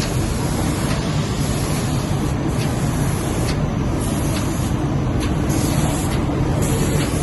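Industrial machinery running steadily: a constant low hum under an even hiss.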